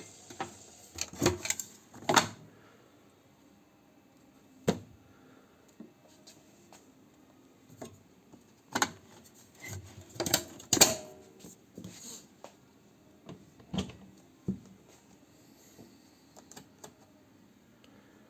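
Irregular clicks and knocks, in small clusters, from a Zanussi ZWP 580 top-loading washing machine being handled.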